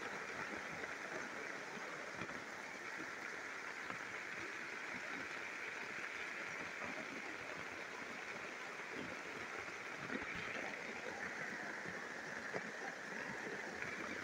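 Steady jungle ambience: a continuous even hiss that does not let up, with soft rustles and small thumps of hammock fabric as the phone is moved about.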